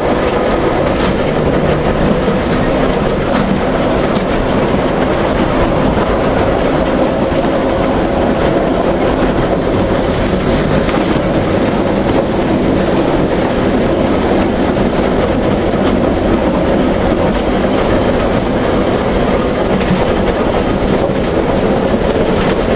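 Manx Electric Railway car running along the line: steady rumble of wheels on the rails with scattered rail-joint clicks and a faint steady hum underneath.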